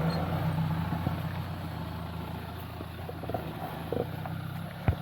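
Mahindra Thar engine running steadily at low revs, with scattered clatter and a sharp knock just before the end.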